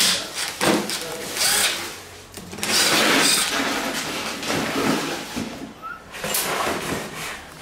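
Workshop tool noise from work on a scooter engine: short bursts of metal clatter, and a longer spell of tool noise about three seconds in.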